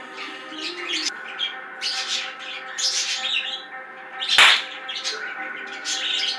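Repeated short, high bird-like chirps and squawks, with one sharp bang about four seconds in that is the loudest sound.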